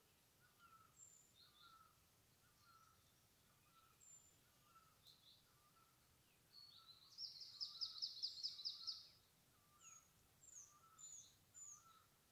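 Faint forest birdsong: one bird repeats a short mid-pitched note about every two-thirds of a second, while others give scattered high chirps. About seven seconds in, a bird sings a rapid high trill of about a dozen notes lasting two seconds, the loudest sound here, followed by a few short falling high chirps.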